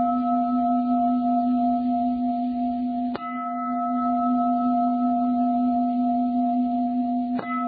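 Buddhist singing bowl ringing with a steady hum of several tones, struck again about three seconds in and once more near the end, before the chanted invocation begins.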